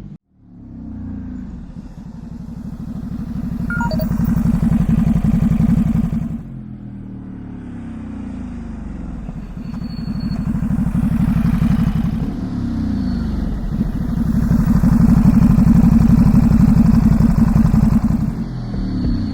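Ducati SuperSport S's 937 cc Testastretta L-twin through its standard exhaust, picked up by a mic on the bike while it is ridden. The engine climbs in pitch and loudness under acceleration, drops suddenly about six seconds in, pulls up again twice, and the pitch falls as the throttle closes near the end.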